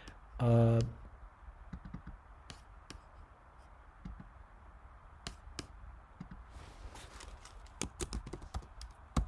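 Computer keyboard and mouse clicks: scattered single clicks at first, then a quicker run of keystrokes over the last two seconds or so.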